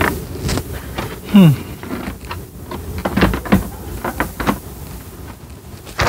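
Handling noise: a paper instruction sheet rustling while a small plastic mini fridge is turned around on a vehicle's cargo floor, giving irregular knocks and scrapes. The loudest comes about a second and a half in.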